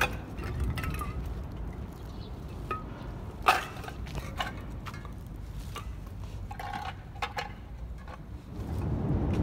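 Empty metal cans clinking and clattering as they are handled and dropped into a plastic trash bag, with a sharp clank about three and a half seconds in. A low rumble runs underneath and grows louder near the end.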